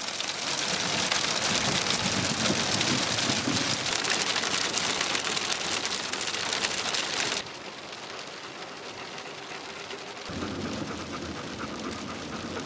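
A hailstorm: hail and rain pelting down in a dense clatter of countless small hits. About seven seconds in it drops sharply to a lighter patter, then picks up a little again near the end.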